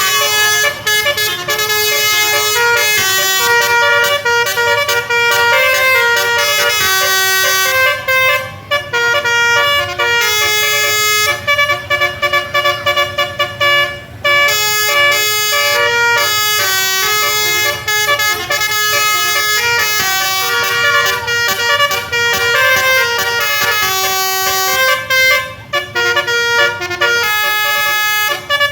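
Bus 'telolet' musical air horn playing a tune: a long run of loud horn notes that step from pitch to pitch every fraction of a second, with a few short breaks.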